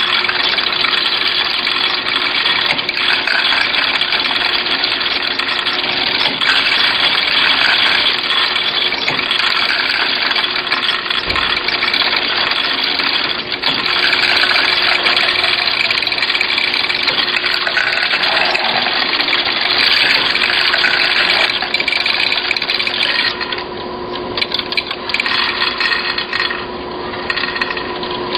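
Pills clattering and rattling continuously as they pour across the feed tray of a tabletop tablet/capsule counting machine, a dense stream of small clicks over the machine's steady hum. About 23 seconds in the clatter thins out and gets quieter.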